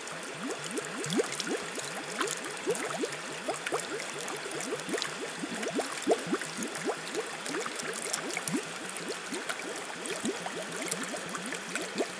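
Plastic jug held under river water and filling, with air bubbling out of its mouth in a quick, steady run of gurgling glugs, several a second.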